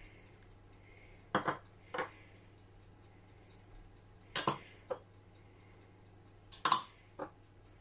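Small white prep bowls knocking against the rim of a clear mixing bowl as spices are tipped into mashed potatoes. There are six short sharp clinks in three pairs, the loudest near the end.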